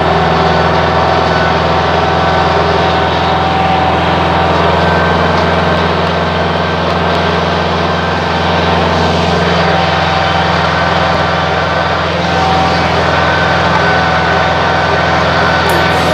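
Old Deutz tractor's diesel engine running steadily at an even speed, heard up close from on the tractor.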